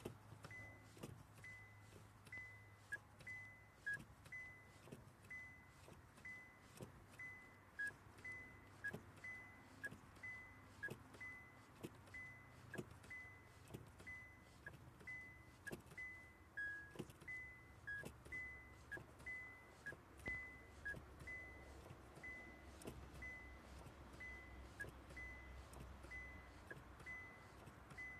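A car's warning chime beeping steadily about once a second, a short high beep each time, with faint knocks from a cowboy boot working the pedal.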